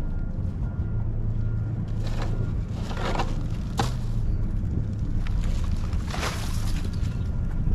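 A vehicle engine running with a steady low hum, with short rushes of noise about two, three and six seconds in.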